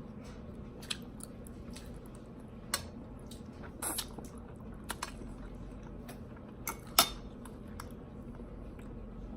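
Eating sounds: utensils clicking and tapping against dishes, with soft chewing and squishing of food. There are half a dozen scattered sharp clicks, the loudest about seven seconds in, over a steady low hum.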